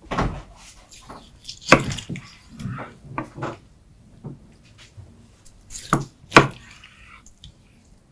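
A knife chopping through smoked sturgeon and knocking on a wooden cutting board: about six sharp knocks at uneven intervals, the loudest about two seconds in and again near the end.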